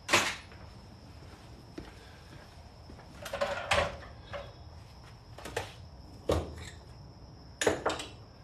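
Irregular knocks and clunks of hard objects being handled and set down in a garage. The loudest comes right at the start, a cluster follows about three and a half seconds in, and a couple more come near the end.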